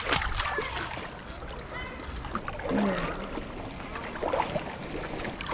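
Water splashing and flowing, an uneven rush with scattered small splashes, and a brief faint voice about three seconds in.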